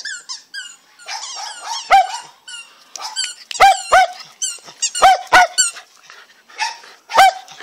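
Miniature schnauzers playing with a red rubber squeaky ball: about nine short, high, sharp squeaks, several in quick pairs, with faint high chirps in between.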